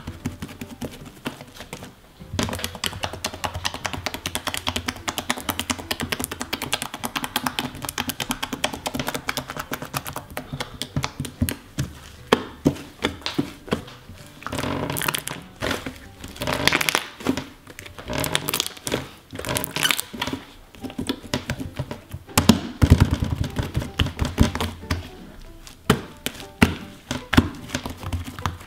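Thick purple slime being pressed, squished and poked by hand on a plastic table mat, making dense, irregular sticky clicks and pops.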